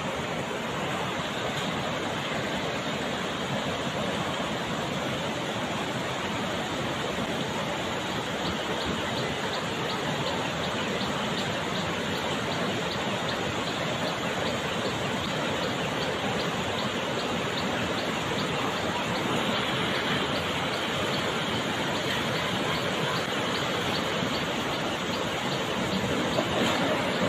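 Flash-flood runoff rushing steadily across a road.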